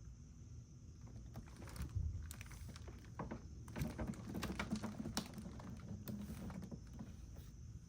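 Irregular small clicks, taps and knocks of hands handling the generator and its parts during an oil change, busiest in the middle, over a faint low hum.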